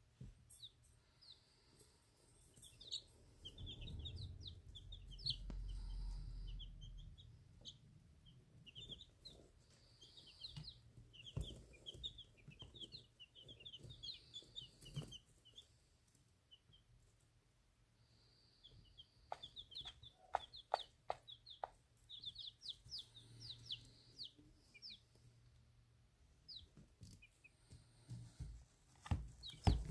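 A brood of baby chicks peeping: many short, high peeps in busy flurries that ease off in the middle. A low rumble comes early, and there is a quick run of sharp clicks a little past the middle.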